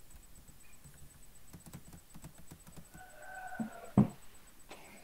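A quick run of faint clicks, then a short pitched call and one sharp knock about four seconds in, the knock being the loudest sound.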